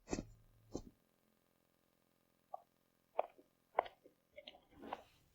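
Faint short knocks: two in the first second, then a quiet gap and several more, spaced about half a second apart, from about halfway through.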